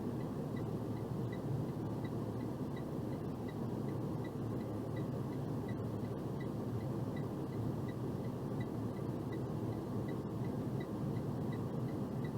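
Steady low engine and road rumble heard inside a box truck's cab, with a faint, regular high tick about three times a second.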